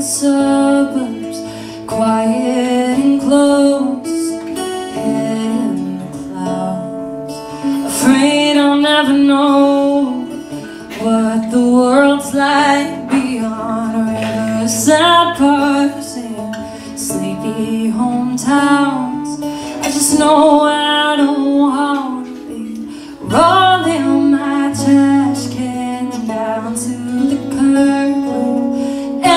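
A woman singing a song, accompanied by two acoustic guitars.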